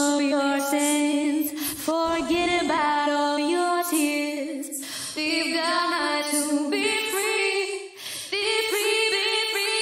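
A solo female voice sings a slow a cappella line in long held notes, heard through Altiverb 7 convolution reverb set to the SARM West Studios stairwell impulse response, which leaves a reverb tail after each phrase. The melody moves higher in the last few seconds.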